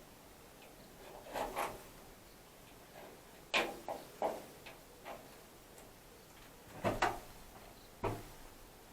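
Irregular light knocks and clicks, a few at a time, with the sharpest ones about three and a half seconds in and around seven seconds.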